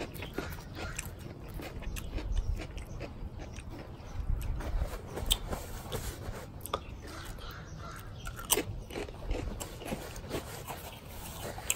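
Close-miked chewing of a bite of patty melt and pickle: wet mouth clicks and crunches come irregularly, with one sharper crunch a little past the middle.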